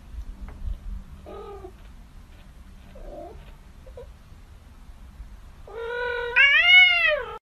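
Kitten giving a few short, faint mews. Near the end it lets out one long, louder meow that holds, then rises and falls in pitch.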